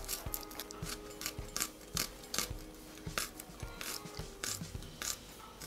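Dry, papery onion skins being peeled and torn off by hand against a boti blade: a string of short, irregular crackles, about three a second.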